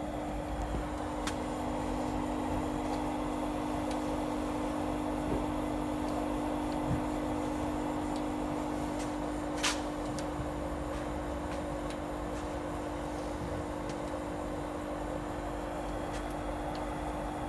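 Orion ecodan HCM10 jet heater running steadily: an even hum with a low steady tone under a rush of air from its fan and burner. A single sharp click sounds about ten seconds in.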